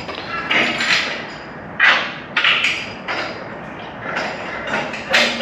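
Irregular knocks and clanks of steel parts being struck or handled, about eight in a few seconds, each ringing briefly.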